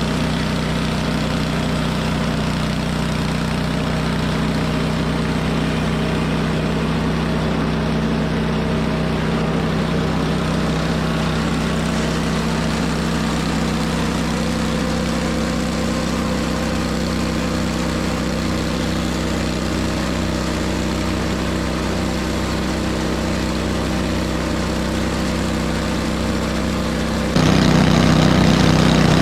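An engine running steadily at idle, then stepping up louder and fuller near the end.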